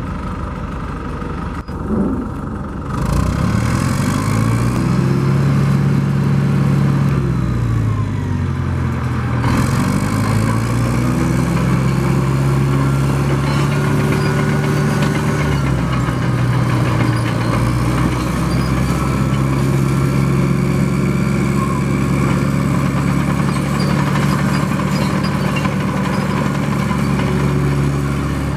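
1968 Caterpillar 955K crawler loader's diesel engine running as the machine drives and turns. The engine picks up about three seconds in, its note dips and climbs back again between about seven and nine and a half seconds, and it then runs steadily.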